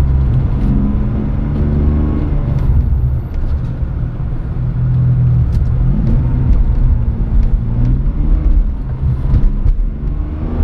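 Car engine and road noise heard from inside the cabin as the car drives, the engine note rising and falling with changes in speed.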